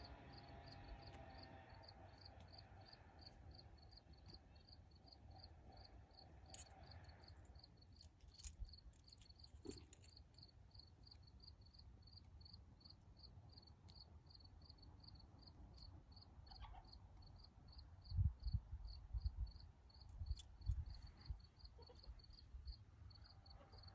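Faint outdoor insect chirping, a thin high pulse repeating evenly a few times a second. A few low rumbling thumps on the microphone come about three-quarters of the way through.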